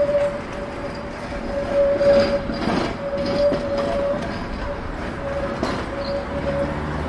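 Tram running past on its rails, with a steady high tone that keeps breaking off and returning, over city traffic noise.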